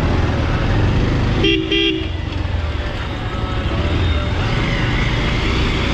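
Bajaj Pulsar 220F's single-cylinder engine running as the bike is ridden. About one and a half seconds in, a vehicle horn gives two short toots.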